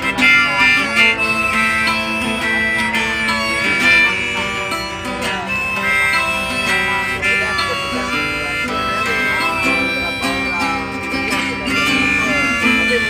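Acoustic guitar played in an instrumental break between sung verses, with a held melody line that bends in pitch over the strumming.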